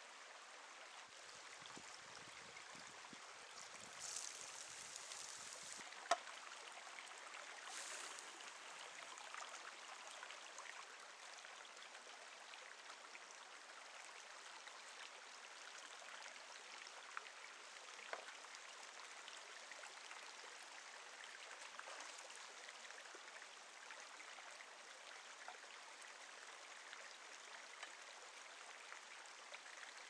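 Steady rush of a stream flowing over rocks, with a few faint clicks and short bursts of hiss.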